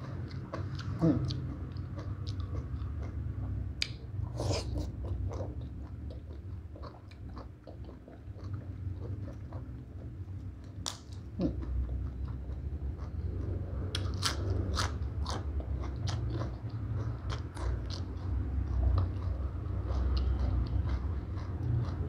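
Close-up eating of papaya salad and crisp lettuce leaves: wet chewing broken by sharp crunches, which come thickest in the latter half.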